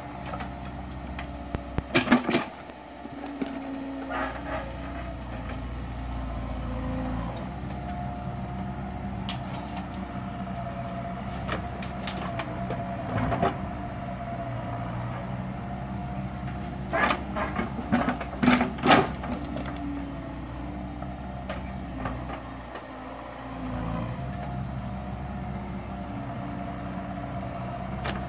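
Yanmar B50W wheeled excavator's diesel engine running steadily under hydraulic load while it digs and loads soil. Loud knocks come at intervals: a couple near the start, one about halfway, and a cluster about two-thirds of the way through.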